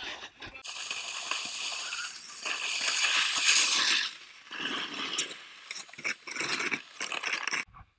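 Snowboard sliding and scraping over hard-packed snow at speed, a loud even hiss. After about four seconds the scraping turns patchy, with scattered knocks.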